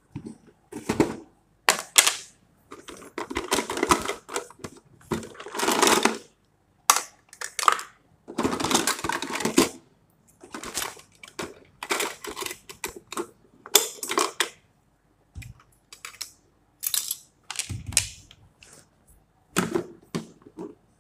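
Hard plastic containers, lids and utensils being handled on a metal tray: irregular clicks, knocks and short bouts of clatter.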